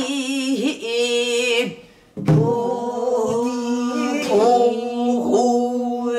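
A woman singing pansori in a husky, full-throated voice, holding long drawn-out notes with a wide wavering vibrato. She breaks off for a breath about two seconds in, then sings on.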